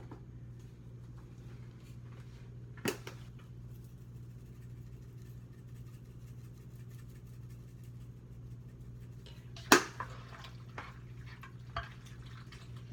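Kitchen utensils and dishes knocking: a sharp click about three seconds in, then a loud knock near the ten-second mark followed by a few lighter clicks, over a steady low hum.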